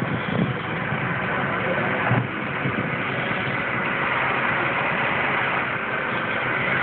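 Flatbed tow truck's engine running steadily at idle, with one short knock about two seconds in.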